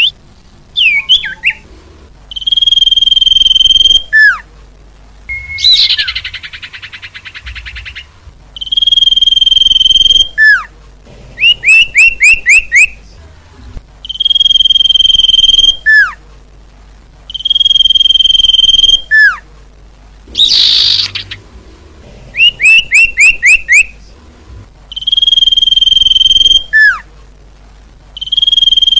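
Sirtu bird song played as a lure call. The phrase repeats about every six seconds: a long, steady, high whistle, a single falling note, then a quick run of five or six short falling notes. Two harsh, raspy calls come in, about six seconds in and again past the twenty-second mark.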